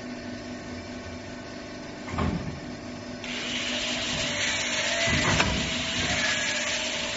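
CNC tube bending machine running, with a steady motor hum. There is a clunk about two seconds in, then from about three seconds an even, hiss-like whir while the carriage feeds the tube forward, with a sharp click near the middle.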